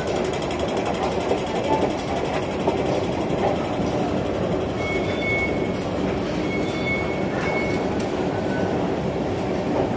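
Steady mechanical rumble inside a metro station, from the moving escalator and train machinery, with a few short high-pitched tones about halfway through.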